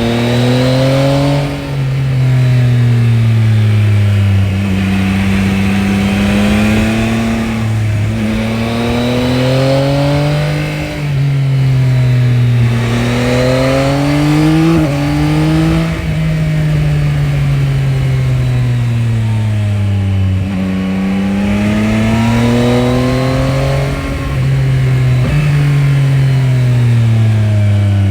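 Yamaha Tracer 9 GT's 890 cc CP3 three-cylinder engine on its stock exhaust, running under way. Its pitch climbs and falls again and again as it accelerates and slows, with a few brief dips in volume.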